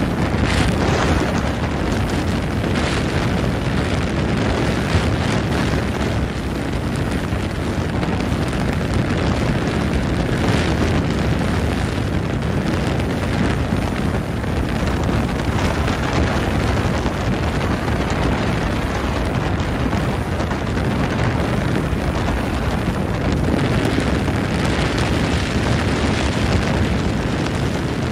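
Motorboat under way: wind buffeting the microphone in gusts over a steady low rumble and rushing water.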